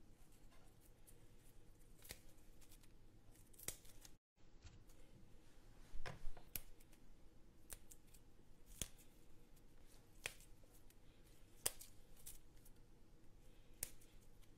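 Spoon scraping and knocking against the pot while flour is stirred and toasted in melted butter: faint, sharp scrapes every second or two, with a louder cluster about six seconds in. The sound cuts out briefly about four seconds in.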